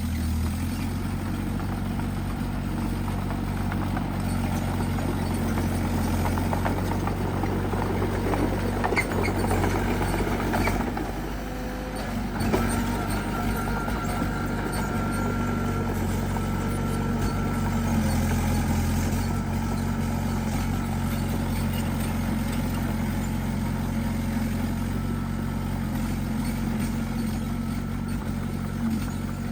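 Bulldozer diesel engine working steadily, its pitch shifting now and then as it is throttled, with a stretch of crackling and scraping about a third of the way in.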